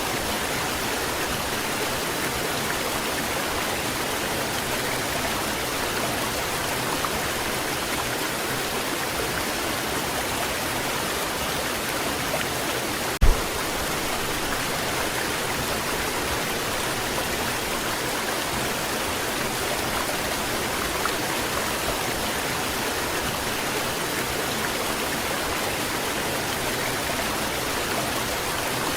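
Steady rush of a waterfall's falling water. A single sharp click cuts through it about 13 seconds in.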